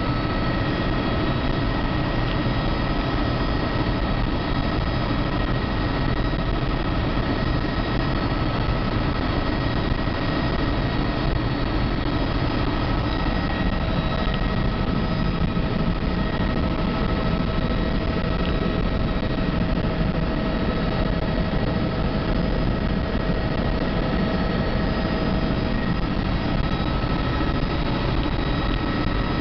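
Helicopter in flight, heard from aboard: a steady, unchanging drone of turbine engine and rotor, with a thin high whine held over it.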